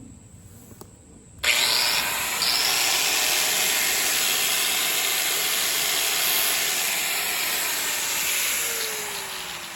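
DeWalt electric sander switched on about a second and a half in, grinding steadily against a dull machete's steel edge to sharpen it. Near the end the sound eases and the motor's pitch slides down.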